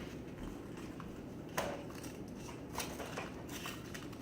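Toy packaging being handled and opened: a few light clicks and crinkles of plastic, the sharpest about a second and a half in.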